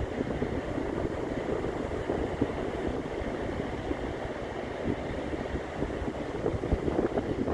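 Ocean surf on a beach: a steady rushing wash of waves.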